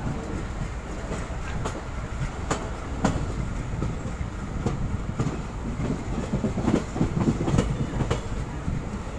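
Passenger train coaches running along the track: a steady low rumble with the clickety-clack of wheels on the rails, sharp clicks at irregular intervals, and a louder clatter near the end.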